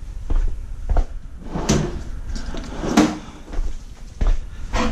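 Scattered sharp clanks and knocks of metal hand tools being rummaged through and picked up while a wrench is fetched.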